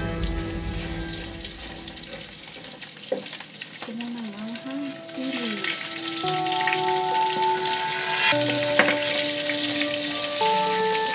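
Pork pieces sizzling in oil in a wok while being stirred with a wooden spoon; the sizzling thickens about five seconds in as sliced red onions go into the pan, with a single knock near nine seconds. Background music with long held notes plays underneath.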